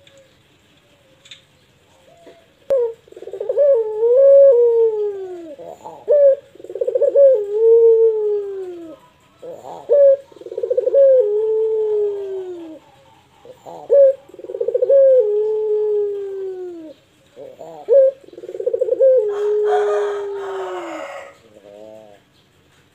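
A caged ringneck dove (Indonesian 'puter pelung') cooing: five long coos, about one every four seconds. Each opens with a short sharp note and then draws out into a long coo that slides down in pitch, the long-drawn 'pelung' style. A brief noisy sound overlaps the last coo near the end.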